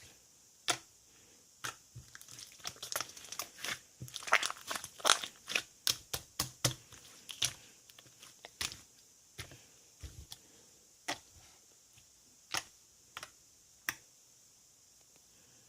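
Slime being pressed and squeezed by hand, making sharp, irregular clicks and pops as trapped air bursts. The pops come thickest a few seconds in and then thin out to single pops every second or so.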